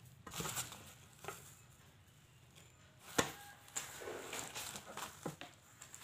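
A fabric sling bag being handled: light rustles and taps, with one sharp knock about three seconds in, then more rustling.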